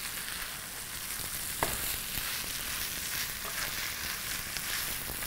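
Boiled spaghetti frying in butter and pan drippings in a skillet: a steady sizzle, with the stirring of a big spoon turning the noodles over. One sharp click of the spoon against the pan about a second and a half in.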